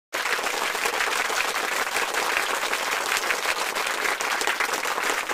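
A crowd applauding: dense, steady clapping of many hands.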